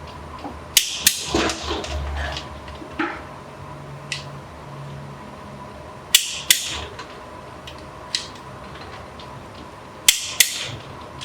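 Hand tools knocking against metal parts during engine assembly work: sharp knocks, mostly in pairs about a third of a second apart, coming three times with a few single taps between.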